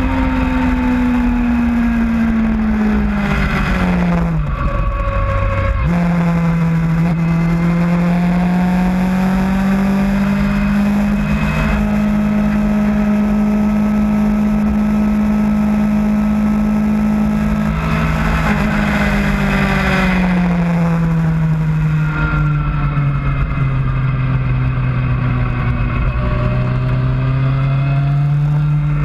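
Sports motorcycle engine heard from the bike itself at track speed, its note falling, dipping sharply about five seconds in, climbing and holding steady, then falling away again as the bike slows for corners. Wind rush over the microphone runs underneath.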